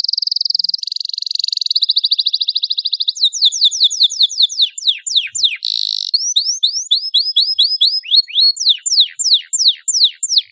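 Yellow domestic canary singing a long, fast song: first a rapid rolling trill, then runs of quick, high, falling whistled notes several a second, broken by a short buzzy note about halfway through.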